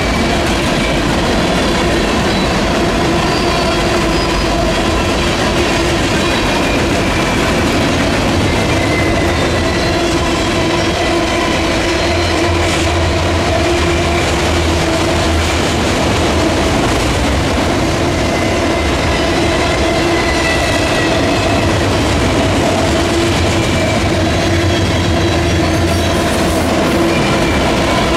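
Freight cars of a mixed freight train rolling past close by: a steady, loud rumble and clatter of steel wheels on rail, with thin high wheel squeals coming and going.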